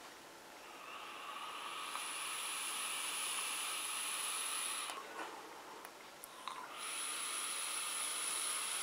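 Two long draws on an e-cigarette: a steady hiss of air pulled through the atomizer, with a thin high whine. The first lasts about four seconds, and the second follows a short pause.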